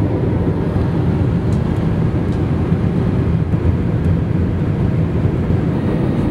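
Steady cabin noise of a jet airliner in flight, heard from a seat inside: the turbofan engines and rushing air make an even, deep drone.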